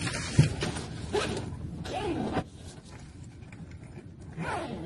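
A backpack being packed and zipped: several quick zipper pulls and the rustle of the bag's fabric, with a single knock about half a second in. The handling is busier in the first half and quieter after.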